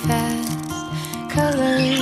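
Background music with sustained notes over a steady low beat.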